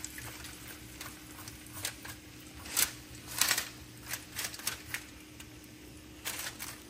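A fork scraping and raking the strands out of a roasted spaghetti squash half, in short, irregular scratchy strokes, the loudest about three seconds in.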